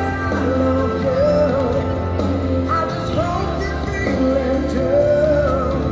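Pop-style song with a singing voice: a gliding melody over steady sustained bass notes, played through the outdoor loudspeakers of a fireworks-to-music show.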